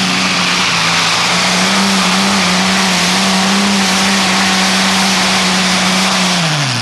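Modified tractor-pulling tractor's engine running hard under load down the track, a loud, steady exhaust note with a fixed pitch. Near the end the pitch falls away as the engine comes off the throttle.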